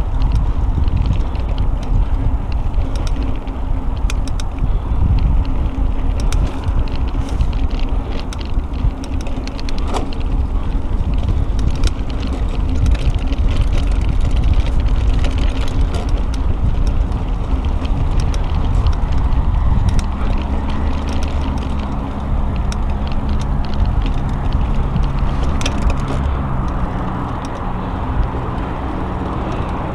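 Mountain bike rolling over a dirt singletrack: a steady tyre rumble with many small rattling clicks from the bike. About twenty seconds in it turns smoother and steadier as the tyres reach pavement.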